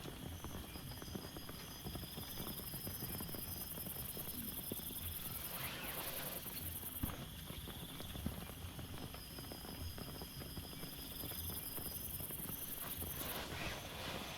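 Steady rain, with many irregular drops tapping close by.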